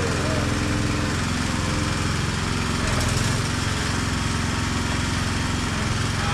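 A small engine running steadily at constant speed.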